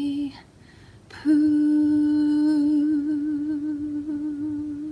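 Woman singing unaccompanied: a short note ends just after the start, and after a pause of about a second she holds one long note, steady at first and then wavering with vibrato.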